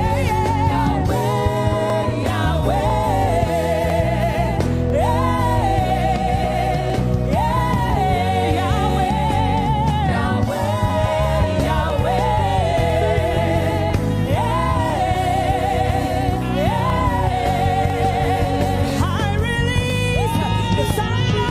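Gospel worship music: a voice sings long, wavering held notes without clear words over a steady instrumental backing.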